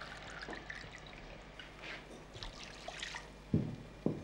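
White wine poured from a bottle, a faint trickle and splash of liquid. Two dull thumps come close together near the end.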